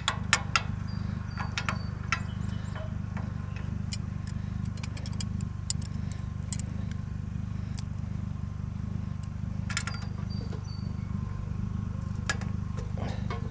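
Scattered sharp clicks and metal taps of hand tools working at a stuck scrap-metal part, with a short flurry of clicks about ten seconds in, over a steady low rumble.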